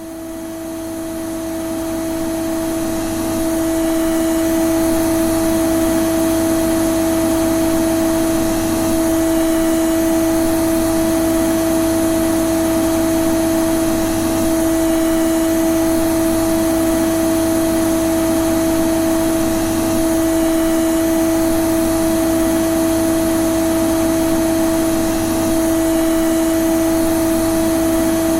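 Vacuum cleaner (hoover) running steadily: a constant motor drone with a strong pitched hum over a rushing of air. It grows louder over the first few seconds, then holds even.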